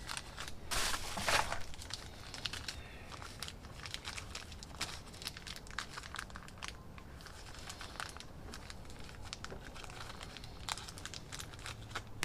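Handling noises: crinkling and rustling with scattered light clicks, loudest about a second in.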